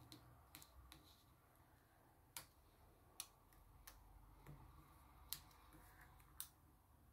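Faint, sparse clicks and taps of plastic nail tips being pressed down and handled with a small tool on a practice hand, a light click roughly every second.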